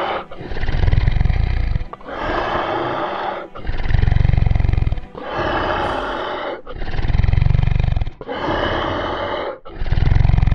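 Dinosaur roar sound effects: about seven long roars and growls in a row, each about a second and a half, alternating between very deep rumbling ones and higher, rasping ones.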